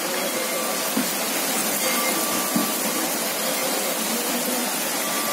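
Heavy rain pouring onto standing water on the ground: a steady, dense hiss of splashing drops.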